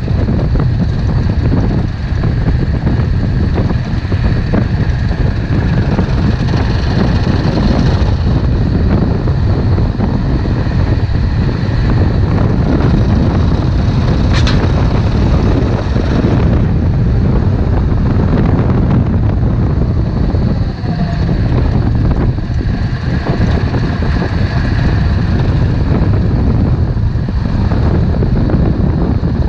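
Yamaha Drag Star 650 V-twin engine running while the motorcycle is ridden, with heavy wind buffeting on the microphone.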